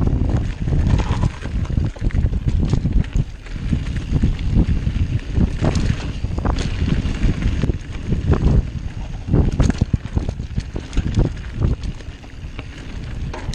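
Mountain bike rolling downhill on a dirt trail at speed: wind rumbling on the microphone over tyre noise, with frequent sharp rattles and knocks from the bike jolting over bumps.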